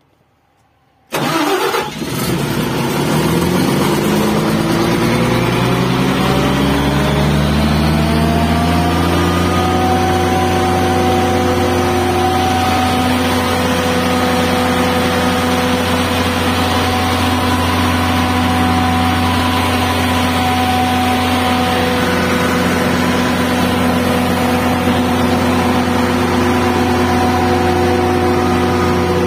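Large diesel generator set starting. After about a second of quiet the engine catches with a sudden loud burst, climbs steadily in pitch for several seconds as it comes up to speed, then settles into steady running at its governed speed. This is a cold start after the set has stood unused for over a week and a half.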